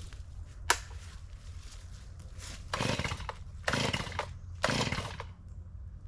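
Chainsaw running steadily, with three short louder bursts about a second apart in the second half.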